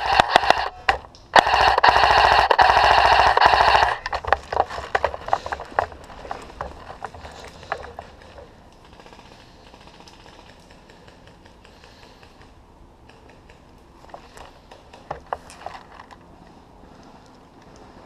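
Airsoft rifle firing on full auto in two bursts, each a fast mechanical rattle: a short one, then a longer one of about two and a half seconds. Scattered lighter clicks and taps follow.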